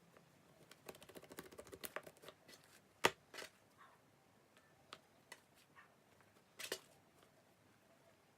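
Slime mixed with crushed Banana Kick corn-puff snack being squeezed and pressed by hand, crackling and clicking. There is a quick run of crackles about a second in, one sharp click around three seconds, scattered ticks, and another short crackle near the end.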